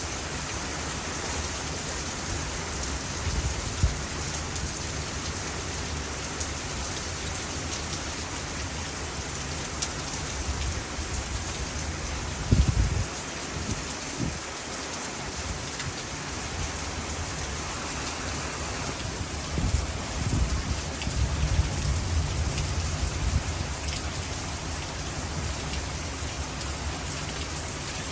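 Heavy, wind-driven rain pouring steadily in a thunderstorm, with low rumbles about twelve seconds in and again from about twenty seconds in.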